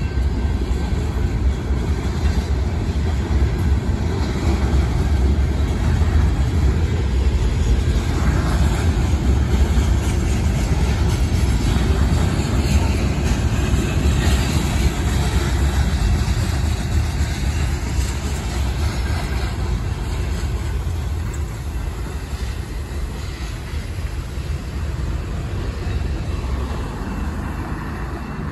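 Union Pacific freight train of hopper cars rolling past a grade crossing: a steady rumble and clatter of wheels on rail that slowly fades over the last several seconds.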